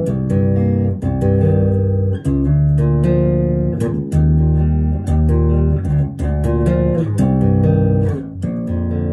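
Chapman Stick played by two-handed tapping: bass notes under tapped chords, the chords changing about once a second in a repeating pop-style progression.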